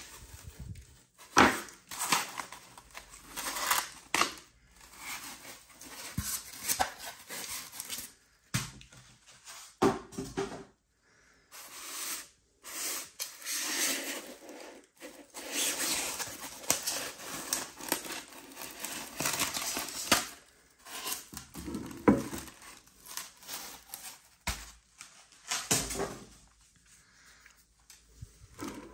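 Close-up handling of a polystyrene foam packing box and a plastic-wrapped figure: foam rubbing and scraping as the box is opened, a plastic bag crinkling, and sharp knocks on the tabletop. The sounds come in irregular bursts with short pauses between them.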